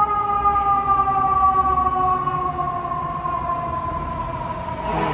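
Emergency vehicle siren sounding one long tone that slowly falls in pitch, over a low rumble of street traffic.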